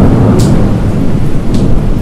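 Thunderstorm sound: a loud, continuous low rumble of thunder over rain, with a couple of short crackles.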